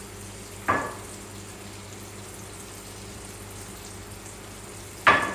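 Croquettes deep-frying in a skillet of hot oil: a steady bubbling sizzle. A short sharp sound cuts in once about a second in, and a louder one comes near the end.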